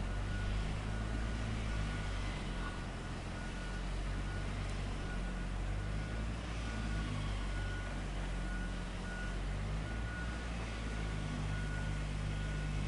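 Heavy machine's diesel engine running steadily under a reversing alarm that beeps at a regular pace.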